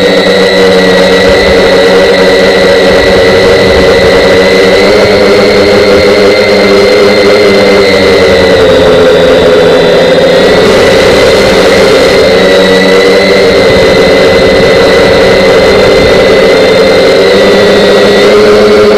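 An RC model airplane's motor and propeller, heard up close from the plane itself, running steadily in flight. It is a loud, high-pitched drone whose pitch wavers slightly, with wind rumbling on the microphone underneath.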